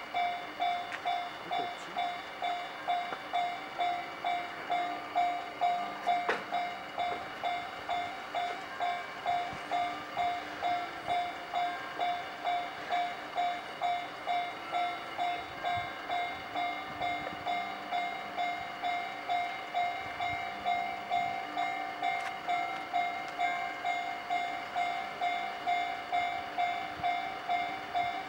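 Japanese railway level-crossing warning bell ringing steadily, about two strokes a second.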